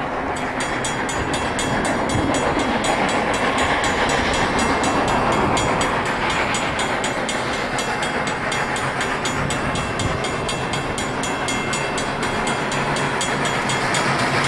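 Everett Railroad No. 11, a 2-6-0 steam locomotive, working hard on approach, its exhaust chuffing in a quick, even beat that slowly grows louder.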